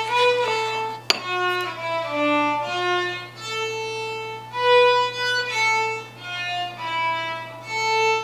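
Background music: a melody of separate held notes, with a single sharp click about a second in.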